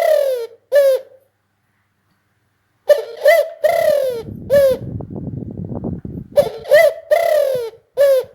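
Spotted dove cooing: three phrases of loud, low cooing notes, each note bending in pitch. A rustling noise runs beneath the middle phrase.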